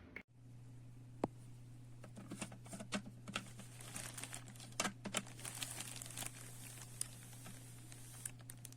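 Irregular crinkling and clicking handling noises over a steady low hum.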